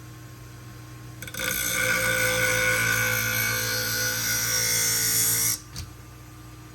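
Pinking shear blade ground on the Twice As Sharp scissor sharpener's spinning abrasive wheel in one gentle sharpening pass. A steady grinding with a hiss and several held tones starts about a second in and stops suddenly about four seconds later.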